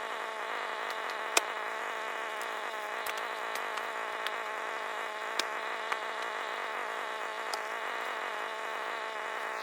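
A motor running with a steady buzzing drone, with a few sharp clicks or knocks, the loudest about a second and a half in.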